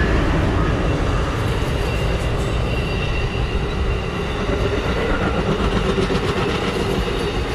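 Amtrak passenger train passing close by, a steady loud rumble of wheels on the rails.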